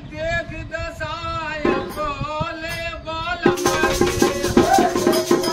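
A voice singing a Holi folk song; about three and a half seconds in, fast rhythmic percussion with jingling rattles joins in and the music gets louder.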